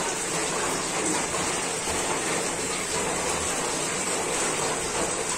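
A steady rushing noise.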